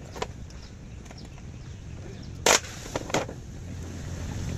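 A few short metallic clinks and knocks of hand tools and parts being handled during repair of a tractor hydraulic lift distributor, the loudest about halfway through and two lighter ones just after it, over a steady low background hum.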